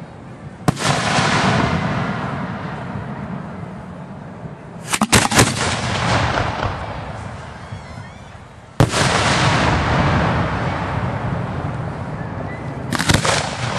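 Aerial firework shells bursting: a sharp boom about a second in, a quick cluster of bangs midway, another single boom about two-thirds through and another cluster near the end, each followed by a long fading rumble.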